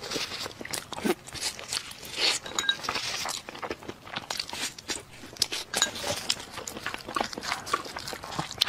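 Close-miked eating sounds of a chicken skewer: biting and chewing the meat off the stick, heard as many irregular, crackly clicks. Near the end, a spoon scrapes a bowl.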